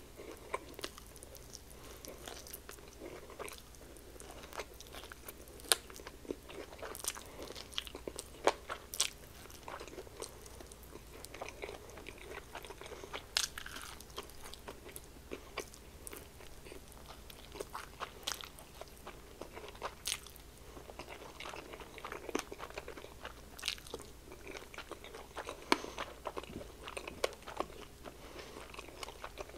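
Biting and chewing crispy fried chicken wings, with many sharp crunches of the breading coming at irregular intervals.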